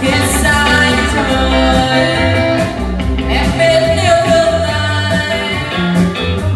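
Band music with a singer: a song carried by a sung melody over bass and a steady beat.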